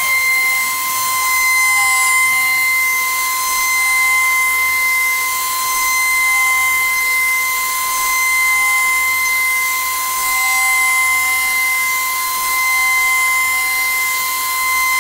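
CNC milling machine spindle running at a constant speed: a steady, high-pitched whine over a hiss, with a fainter lower tone coming and going beneath it.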